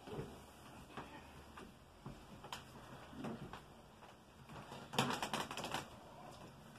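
Handling noises as a cushion is pushed in against the back of a wooden chair with a person seated on it: scattered soft knocks and taps, then a quick run of clicks and creaks about five seconds in, the loudest part.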